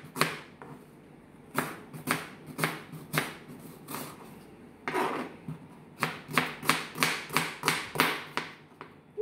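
Kitchen knife chopping a red onion on a plastic cutting board: a run of sharp taps of the blade against the board, uneven and spaced out at first, then quicker, about five a second, from about six seconds in.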